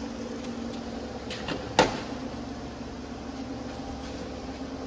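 Steady hum of running factory machinery, with one sharp metallic click about two seconds in as the latch of a steel heat-chamber door is handled.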